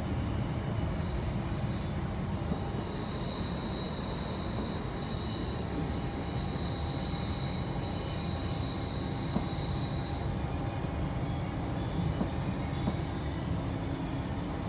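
Queensland Rail New Generation Rollingstock electric train heard from inside a passenger car while running: a steady rumble of wheels on track, with a faint high whine from about three seconds in until about ten seconds in.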